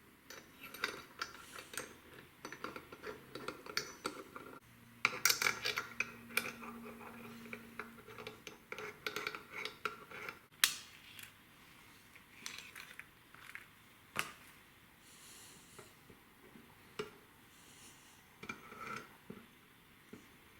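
Irregular metallic clinks, clicks and short scrapes from handling a knife and the Xarilk Gen 3 sharpener's metal parts, with a louder sharp knock about ten seconds in.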